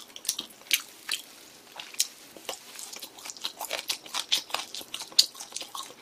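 Close-miked chewing of grilled pork, with irregular wet mouth smacks and clicks, several a second.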